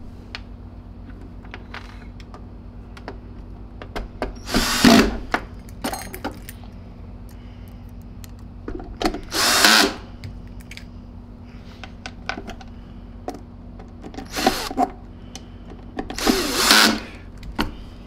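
Power drill driving screws into a vacuum cleaner's plastic housing in four short runs, each about half a second to a second long. Light clicks of handling come between the runs.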